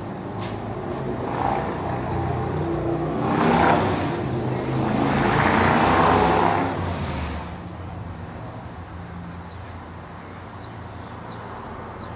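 A vehicle passing by, swelling twice to a peak a few seconds in and then fading away.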